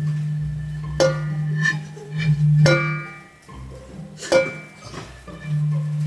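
A low steady hoot from air blown across the mouth of a glass bottle, broken off about halfway and taken up again near the end. Over it a stainless steel bowl is struck three times with a wooden spatula, each strike ringing on like a bell.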